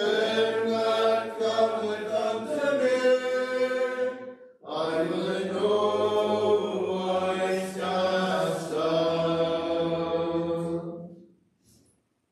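A congregation singing a hymn unaccompanied, in long held notes over two phrases with a short breath about four and a half seconds in; the singing dies away about eleven seconds in.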